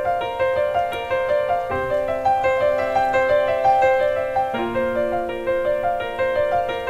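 Piano playing a flowing arpeggiated accompaniment: a steady stream of broken-chord notes over held bass notes that change every two or three seconds.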